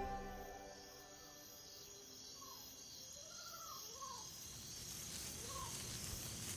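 Faint night-time ambience: a thin steady insect drone with a few short chirping calls, each bending up and down in pitch, from about two and a half seconds in.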